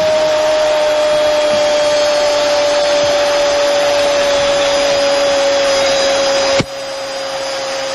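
A football commentator's long held goal shout, one drawn-out note slowly falling in pitch, over a stadium crowd cheering. The crowd noise cuts off suddenly near the end while the shout carries on.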